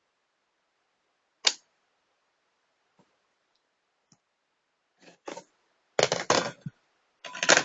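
Handling noises from a netbook being worked on: a single sharp click, then from about five seconds in a run of clicks and clattering plastic, loudest about six seconds in and again near the end.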